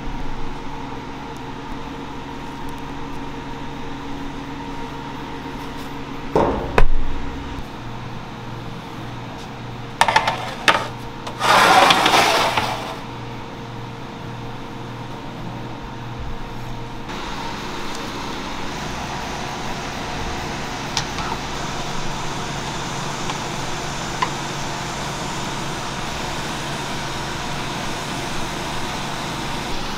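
Bagel bakery kitchen: a steady machine hum with a couple of loud metal knocks about six to seven seconds in. From about ten to thirteen seconds there is clatter and a short loud hiss while bagel trays are loaded into a deck oven, followed by a steady rushing hiss of bagels boiling in a pot of water.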